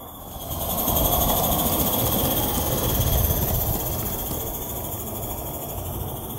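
Accucraft L&B Baldwin 2-4-2 live-steam tank locomotive running past with its snow-plough wagon: the rumble of wheels on the track and the hiss of steam swell about half a second in, then fade after about four seconds.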